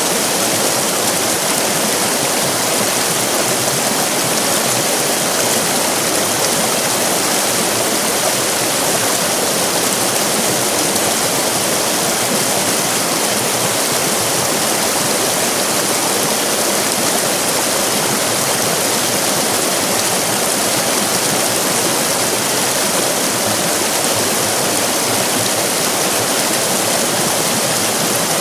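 Fast-flowing river rapids rushing and splashing in a steady, unbroken roar of white water.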